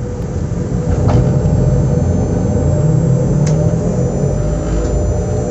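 Z2N double-deck electric multiple unit Z 20895 standing at a platform with its equipment running: a loud, steady, low rumble with faint steady tones above it. It builds over the first second and then holds level, with a sharp click about a second in and another at about three and a half seconds.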